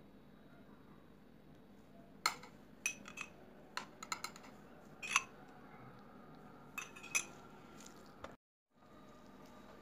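Kitchenware clinking: a dozen or so sharp, light clinks and taps in small clusters from about two seconds in, then a brief moment where the sound cuts out completely near the end.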